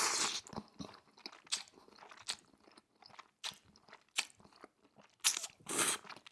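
Close-miked mouth sounds of eating thick udon noodles: a hissing slurp at the start, a run of small wet chewing clicks, then two more slurps about five and six seconds in.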